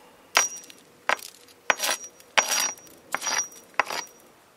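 A steel claw hammer strikes a frozen marshmallow Peep on concrete about six times, in sharp clinking blows, several with a short metallic ring. The Peep is frozen hard and brittle from liquid propane.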